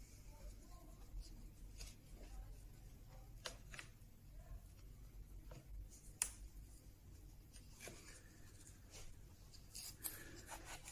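Faint, scattered light taps and rubbing of wooden panel pieces being handled and pressed together on a workbench, close to near silence.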